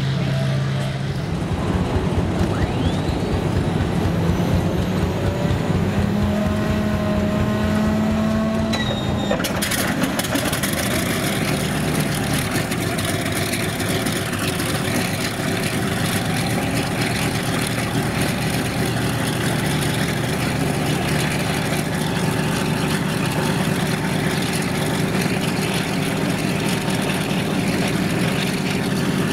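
Motor vehicle engines running steadily. About nine and a half seconds in, the sound changes abruptly and a steady rushing noise is added.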